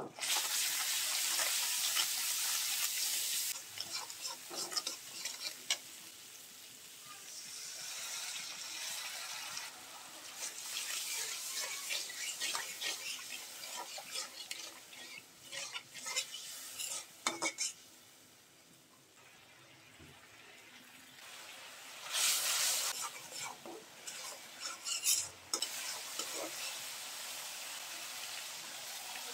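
Onion and ground spices sizzling in hot oil in a metal kadai, with a metal spatula scraping and clinking against the pan as they are stirred. The sizzle is loudest for the first few seconds and again in a short burst about three-quarters through.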